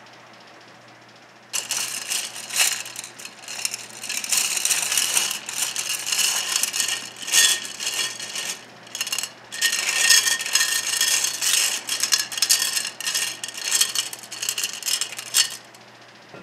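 Glass gems clinking and rattling against each other and the glass bowl as hands dig through them in shallow water. The clatter starts about a second and a half in and stops shortly before the end.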